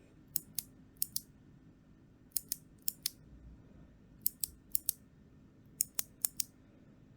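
Clicky mechanical keyboard switches, Kailh Box Jade, pressed one at a time about eight times: each press gives a sharp click going down and a second click coming back up.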